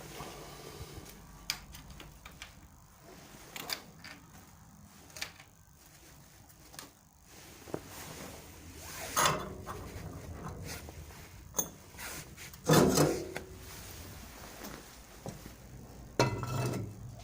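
Metal parts of a homemade waste-oil burner being handled: scattered clicks and knocks, with three louder scraping clanks in the second half.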